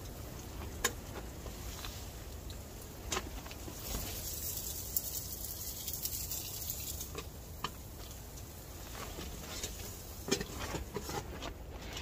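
Scattered light clicks and taps as the door of a small Outbacker wood-burning stove and the pot on top of it are handled, over a steady low rumble, with a high rushing hiss for a few seconds in the middle.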